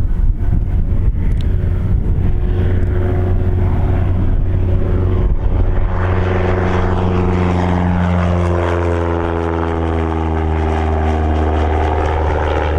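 Single-engine high-wing light airplane's piston engine and propeller at takeoff power as it lifts off and climbs past. The engine note is steady at first, then drops in pitch from about halfway through as the plane goes by overhead.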